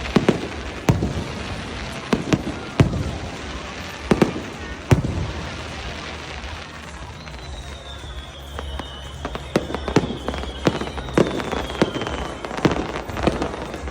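Aerial fireworks shells bursting in a display: a series of sharp booms, about six in the first five seconds, a quieter stretch, then more from about nine seconds in. A high whistling tone glides slowly down in the middle.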